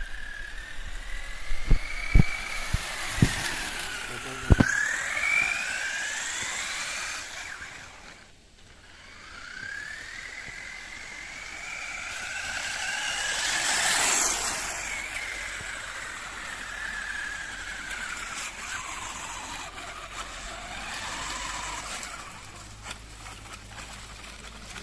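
Surpass Hobby 3650 6900kv brushless motor and gears of a homemade RC buggy whining, the pitch rising and falling again and again with the throttle. A few sharp knocks come in the first five seconds, the whine drops away briefly about eight seconds in, and it is loudest about fourteen seconds in.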